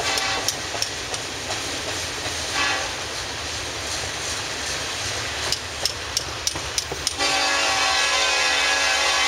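Diesel locomotive horn: two short toots early on, then a long loud blast starting about seven seconds in, over the irregular clicking of freight car wheels over rail joints.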